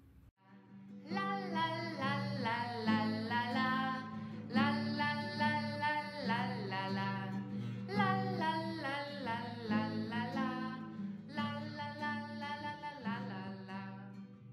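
Music: a voice singing a melody over a plucked acoustic guitar. It starts about a second in.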